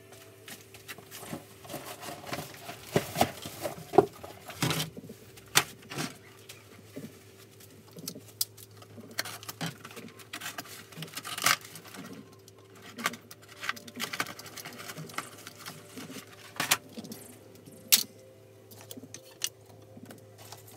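Irregular clicks, rustles and light knocks of hands handling small things on a steel workbench, with scissors snipping cardboard labels, over a steady low hum.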